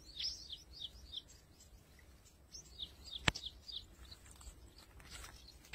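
A bird calling in two runs of short, high, falling chirps, about three a second, with a single sharp click about three seconds in.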